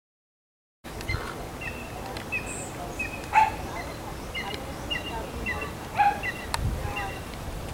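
Animal calls: short high chirps about twice a second, with two louder sharp calls about three and a half and six seconds in. The sound begins about a second in, after silence.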